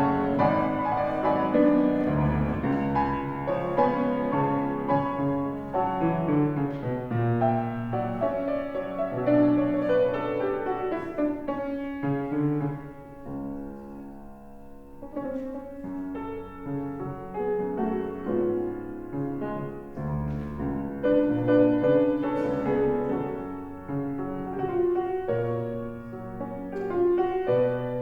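Solo piano playing a postlude, flowing chords and runs that soften briefly about halfway through before building again.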